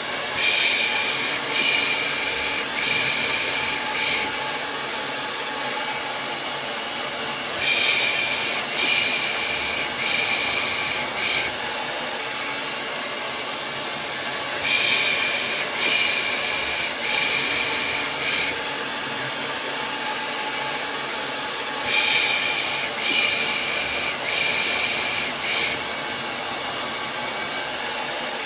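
Hair dryer blowing steadily, with a looped human shushing ("pış pış") layered over it: runs of about four hissing shushes in a row, repeating roughly every seven seconds, as baby-soothing white noise.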